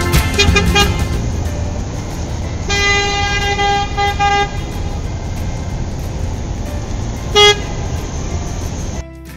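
Road traffic noise with a car horn: one held honk of about a second and a half, starting about three seconds in and broken briefly near its end, then a short toot about seven and a half seconds in.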